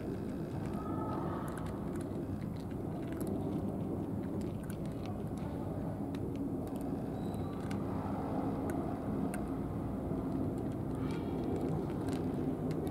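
A cat eating dry kibble from a plastic dish: scattered small crunching clicks over a steady low outdoor rumble.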